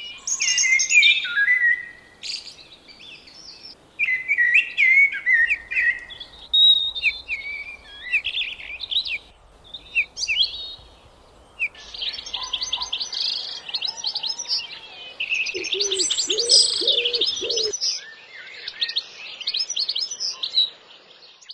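Wild birds singing and calling, several chirps and short twittered phrases that change abruptly, then a stretch of fast high twittering over the second half. Partway through, a lower warbling call joins in briefly.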